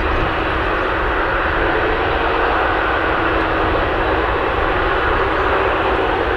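Jet airliner engines running, heard as a steady, loud rushing noise with a faint steady hum underneath.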